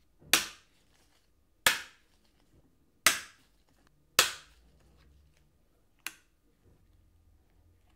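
Diagonal cutters snapping through the thin plastic partition of a Mazda Miata gauge cluster housing: four sharp cracks about a second apart, then a fainter fifth about six seconds in.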